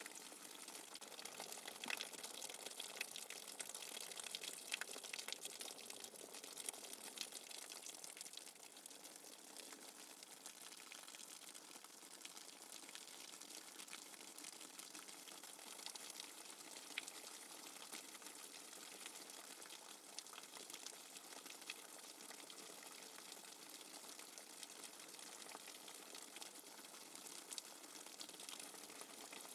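Steady rainfall: an even hiss with many small, sharp drop ticks scattered through it, a little heavier for the first several seconds.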